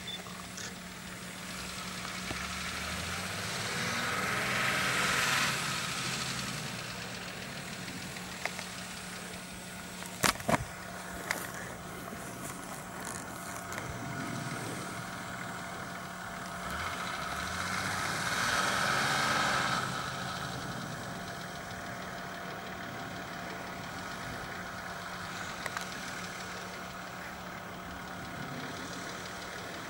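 Nissan Patrol off-road SUV engine running on the slope, rising twice under throttle, once about 4 seconds in and again around 17 to 20 seconds, and settling back to a steady idle between. A couple of sharp knocks about 10 seconds in are the loudest moments.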